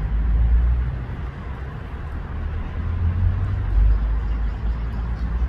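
Low outdoor rumble that swells and eases, with a fainter hiss above it and no single distinct event.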